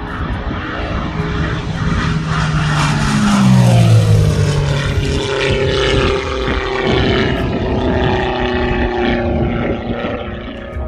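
Radio-controlled model airplane's engine and propeller flying past, growing loudest about four seconds in, its pitch dropping as it goes by, then a steadier drone as it climbs away.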